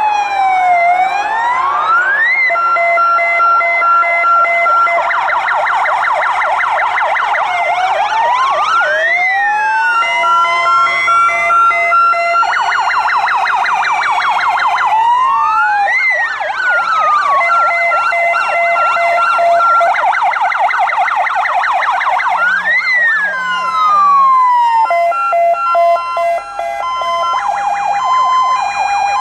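Several fire engines' electronic sirens sounding together. Slow wails rise and fall, fast yelps sweep, and two-tone hi-lo patterns alternate between two pitches, with a two-tone pattern carrying on alone near the end.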